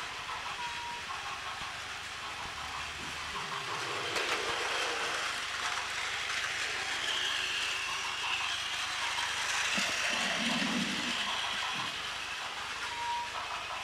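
Several battery-powered Plarail toy trains running on plastic track together, a steady whirring of their small motors and wheels.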